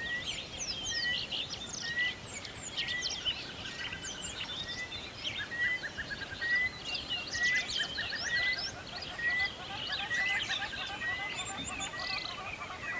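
A chorus of several songbirds singing at once. One bird repeats a short rising whistle over and over at a steady pace while others chirp, sweep and trill higher.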